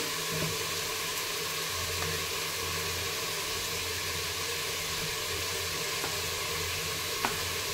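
Steady, even sizzling hiss of potatoes frying in oil in a covered kadhai on a low flame, with a single light click near the end.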